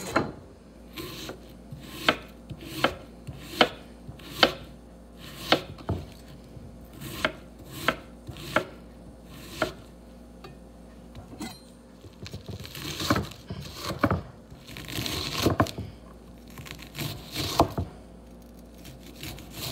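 Chef's knife chopping an onion on a wooden cutting board: sharp knocks of the blade on the board, about one a second and slightly uneven. Past the middle comes a few seconds of denser rustling, then more chops.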